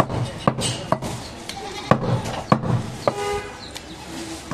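A steel meat cleaver chopping goat meat against a wooden chopping block: about five sharp chops, irregularly spaced half a second to a second apart. A short high-pitched call sounds in the background about three seconds in.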